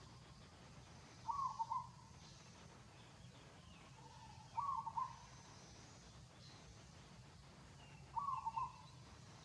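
A bird calls three times, each call a short double note about half a second long, repeated every three to three and a half seconds over a steady low hum.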